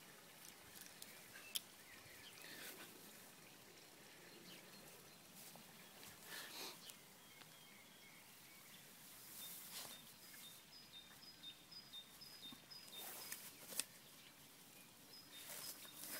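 Faint rustling of a small dog moving through lawn grass, with a couple of sharp clicks. A bird calls in quick repeated high chirps for a few seconds past the middle and again near the end.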